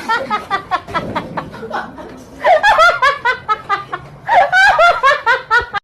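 High-pitched laughter in three fits of quick, rhythmic pulses, each pulse rising and falling in pitch.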